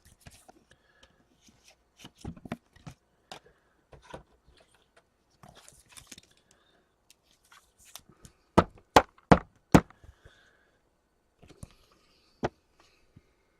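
Trading cards being handled and sorted on a table: light clicks and rustles, with a quick run of four sharp knocks on the table about nine seconds in.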